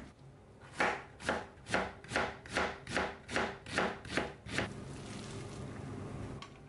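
A chef's knife slicing an onion on a plastic cutting board: about ten crisp chops at a steady two to three a second, each blade stroke ending against the board. A quieter steady noise follows for the last couple of seconds.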